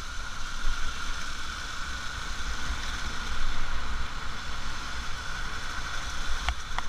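Motorcycle riding on a wet road: steady engine and tyre noise with wind rumbling on the action-camera microphone. Two short sharp clicks near the end.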